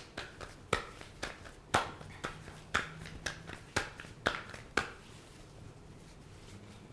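Fry bread dough being patted and slapped flat between the palms by hand, about two slaps a second, stopping about five seconds in.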